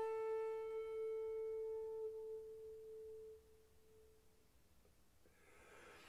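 A 2.4-shaku bamboo shakuhachi holds one long, steady note that fades away over its first three seconds or so, leaving near silence. Near the end a soft rush of breath is heard before the next phrase.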